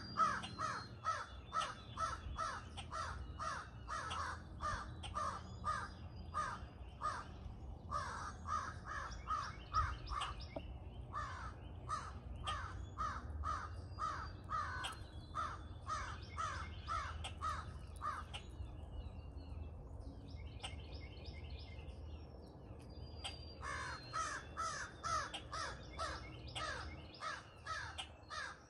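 Crows cawing in long runs of short, rapid caws, about three a second, pausing briefly a few times and going quieter and sparser for a few seconds past the middle before picking up again.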